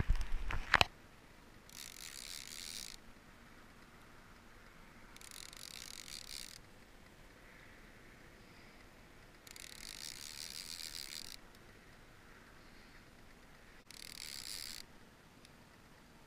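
A fishing reel whirring in four short bursts of one to two seconds each, with a bent rod holding a hooked fish. A few loud knocks come right at the start.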